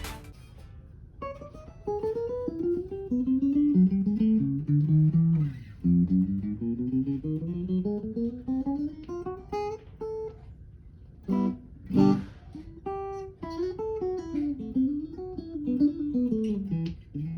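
A solo guitar played note by note: runs that climb in steps, a couple of quick strummed chords about eleven and twelve seconds in, then a winding melody.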